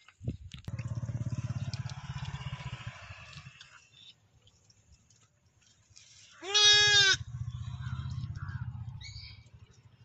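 A lamb gives one loud, high bleat about six and a half seconds in, with low pulsing sounds before and after it.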